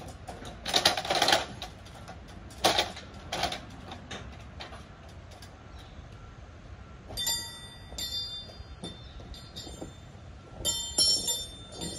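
Steel trolley wheels rolling along the gantry crane's steel beam with a high metallic squeal, twice in the second half. In the first four seconds, several scrapes and knocks as the aluminium step ladder is moved.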